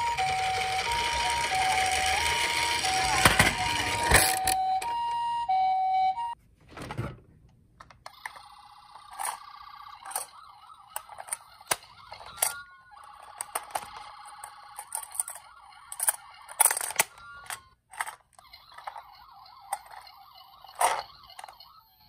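Toy ambulance minicar's electronic two-tone Japanese ambulance siren, alternating steadily between a higher and a lower pitch, cutting off about six seconds in. After that, scattered sharp plastic clicks and knocks of toy vehicles being handled in a cardboard box.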